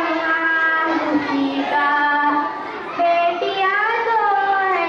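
A young boy singing solo into a microphone, holding long notes that glide up and down, with a short break for breath about two and a half seconds in.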